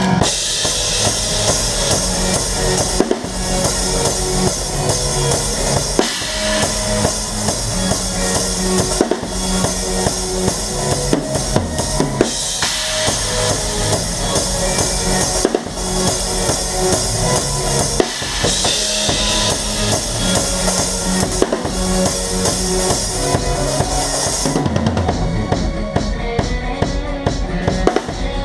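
A drum kit played hard in a live band: a driving bass drum and snare under a wash of crash and ride cymbals, the cymbals breaking off for short accents every few seconds. Near the end the cymbal wash drops away, leaving the drums and band.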